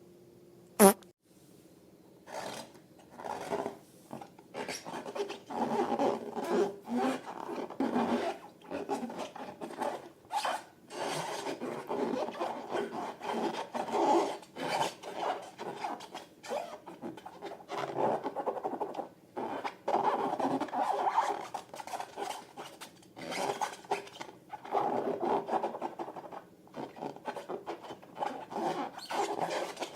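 Rubber balloons being rubbed and squeezed by hand: a single sharp snap about a second in, then irregular rasping, rubbing strokes that keep going with short pauses.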